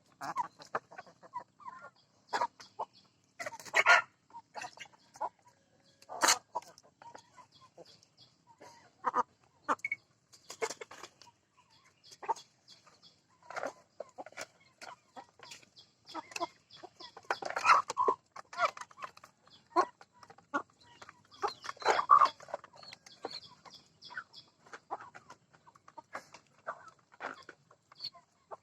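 A flock of chickens clucking and calling irregularly, mixed with many short, sharp clicks and taps.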